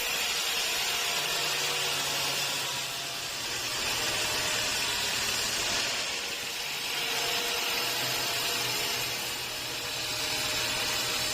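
Sawmill saw cutting through teak wood: a steady rushing noise of the blade in the wood over a low motor hum, easing off slightly a few times.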